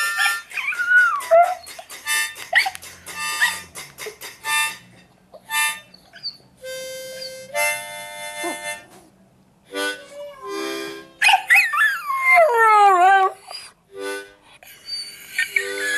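A dog howling and whining in gliding, falling cries, with short yelps in the first few seconds, over harmonica-like music with held chords.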